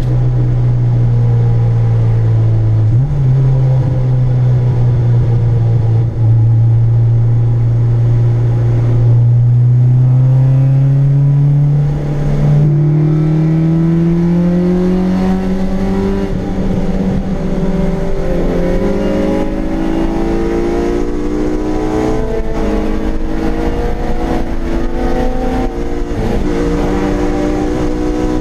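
Honda K24 four-cylinder engine in a Civic EG, heard from inside the cabin under way: the engine note climbs steadily as the car pulls, then rises and drops back several times as it shifts up through the gears.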